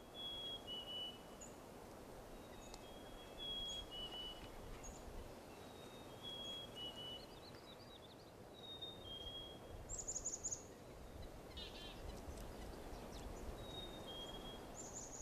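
Several songbirds singing over a steady low outdoor hiss. One bird repeats short, clear whistled notes that step down in pitch, and brief high trills come in about ten seconds in and again near the end.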